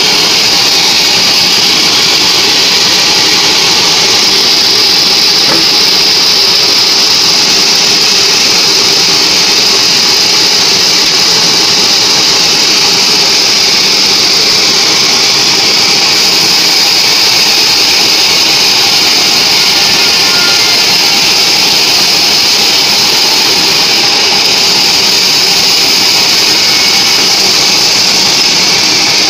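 Sawmill band saw running and cutting lengthwise through a mahogany log: a loud, steady, high-pitched hiss of the blade in the wood that runs without a break.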